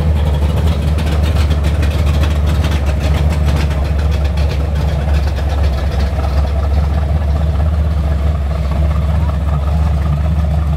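Classic Chevy pickup truck's engine running at low speed with a steady, deep exhaust rumble as the truck rolls slowly by.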